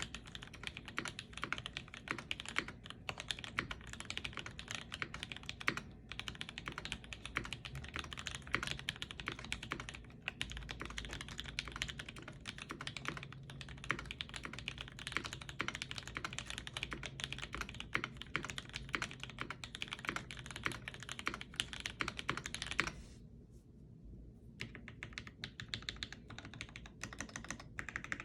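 Continuous fast typing on a UTD 360C mechanical keyboard with lubed and filmed C³ Tangerine linear switches, GMK ABS keycaps, an aluminium plate and no case foam. It is a dense stream of keystrokes, with one pause of about a second and a half near the end.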